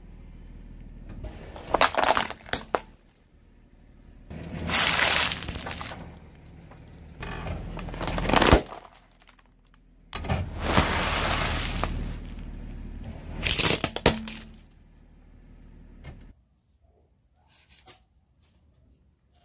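A car tyre rolling over and crushing small objects on concrete: about five separate passages of cracking and crunching. The car's engine drones low and steady underneath, and stops suddenly about sixteen seconds in.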